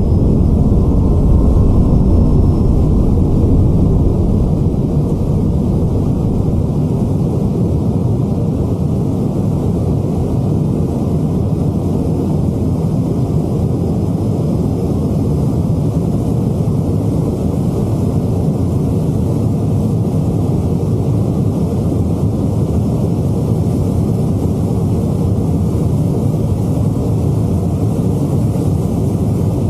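Bugatti Chiron's quad-turbo W16 at full throttle at very high speed, climbing from under 200 to over 400 km/h: a loud, steady rush of engine, wind and tyre noise that is mostly low-pitched, heard from inside the car. Faint rising engine tones come through in the first couple of seconds.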